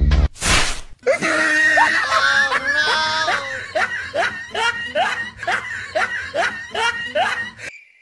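A short, loud burst of noise, then hearty human laughter: rising and falling "ha-ha" strokes, settling into a regular beat of about two a second, that stop abruptly near the end.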